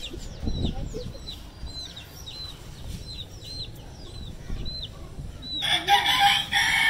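A chick peeping over and over, short high notes that fall in pitch, about two to three a second. About five and a half seconds in, a rooster crows once, a loud call of about a second and a half that drowns out the peeps.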